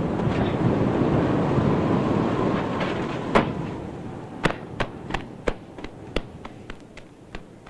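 Storm rumble roaring loudly, then dying away over about four seconds. Near its end comes one sharp crack, followed by a string of fainter, irregular snaps and cracks.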